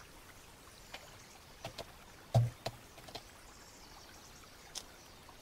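Small laser-cut MDF pieces being handled and pressed together on a tabletop: a few light clicks and taps, the loudest a dull knock about halfway through, over a faint steady hiss.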